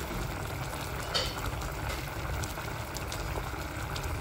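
Thick young-jackfruit (polos) curry bubbling at a simmer in an aluminium pot, a steady bubbling with many small pops.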